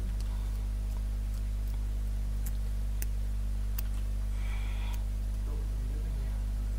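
Steady electrical mains hum, with about six sharp clicks scattered through the first four seconds as fingers handle a headset microphone. A short higher sound comes about four and a half seconds in.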